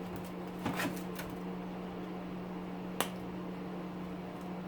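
A few light clicks and taps from handling metal motor parts by hand, with one sharper click about three seconds in, over a steady low hum.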